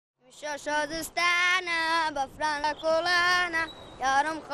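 A high voice singing an unaccompanied melody, starting suddenly out of silence, in short phrases of held notes with a wavering pitch.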